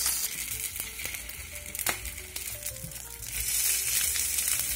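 Blue mackerel fillets sizzling skin side down in a hot nonstick frying pan over high heat, frying in the fish's own oil with no added fat, a steady hiss with a single sharp tap about two seconds in.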